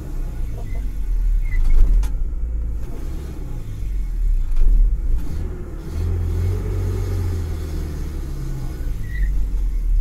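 Ford Ranger pickup's engine running with a low rumble while put under load in reverse gear, a test of the passenger-side engine mount, which is bad on this truck.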